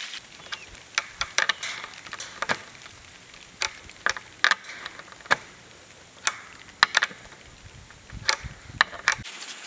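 Sharp metal clicks and taps come at irregular intervals as a bolt is fitted and tightened by hand with a wrench. The bolt runs through a wooden post into the metal pipe frame of a chain-link kennel. A quick run of several clicks comes near the end.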